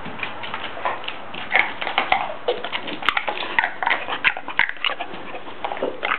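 Pit bull chewing on a plastic Arizona Tea jug and its cap: a dense, irregular run of crackles and clicks from the plastic being bitten and crunched.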